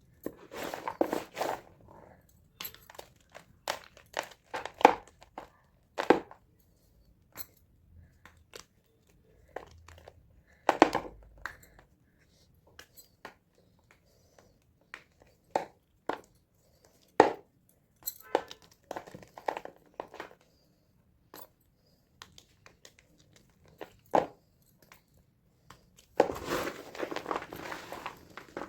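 Pressed gym chalk blocks being crushed: scattered crisp crunches and crackles. Denser crumbling comes about a second in and again near the end.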